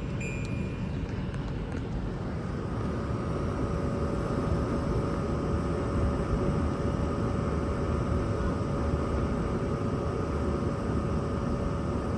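LG Dual Inverter window air conditioner running with a steady rushing hum from its fan and inverter compressor. A short electronic beep sounds at the very start as the setpoint is changed, and a steady hum tone comes in about two seconds in.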